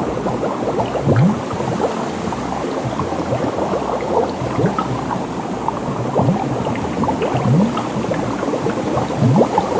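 Water bubbling and gurgling steadily, with many small pops and low bubbly blips about once a second.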